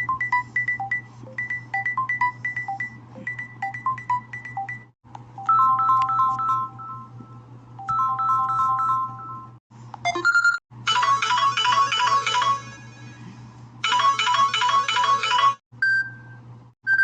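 Samsung phone ringtones playing one after another: short electronic melodies of repeating notes, each a few seconds long, broken off by brief silences before the next begins. A steady low hum runs beneath.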